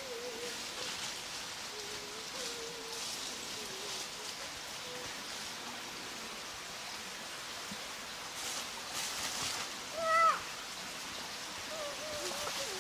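Steady wash of a small stream with rustling through vegetation, faint wavering tones in the first few seconds, and one short high call about ten seconds in.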